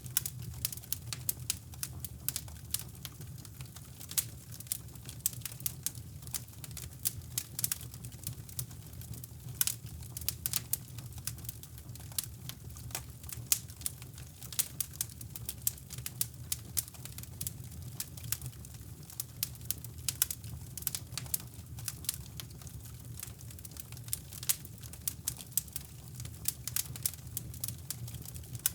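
Wood fire crackling, with irregular sharp pops and snaps over a steady low rumble of brown noise.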